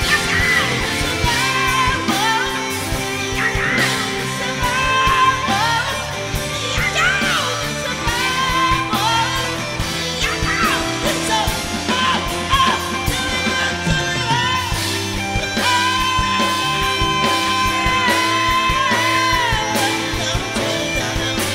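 Live rock band playing: a lead vocalist singing over electric guitars, keyboards and drums, with a long held sung note in the last third.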